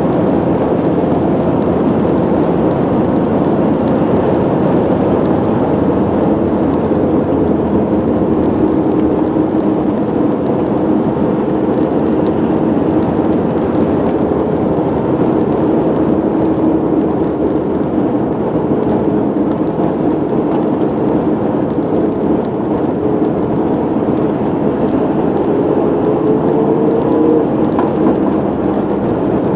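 Steady drone of engine and tyre noise inside a vehicle cruising at motorway speed, with a faint hum of engine tones running under it.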